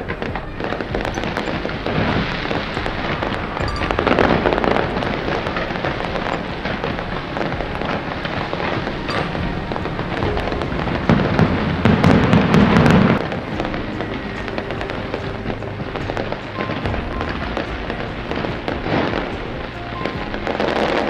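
Fireworks display: steady popping and crackling of shells going off, with heavier bangs about four seconds in, a loud deep rumbling volley from about eleven to thirteen seconds, and another surge near the end.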